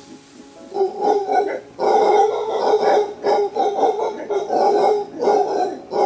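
Howler monkeys roaring: deep, rough, pulsing roars that start about a second in and grow loud and nearly continuous from about two seconds in.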